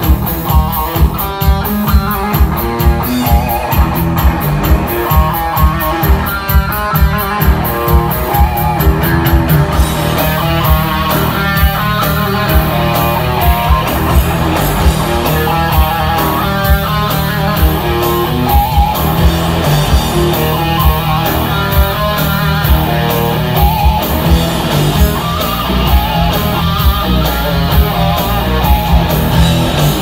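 Live instrumental metal: a distorted electric guitar plays a fast lead melody over pounding drums and low bass. Bright cymbal crashes accompany the first ten seconds or so, then thin out.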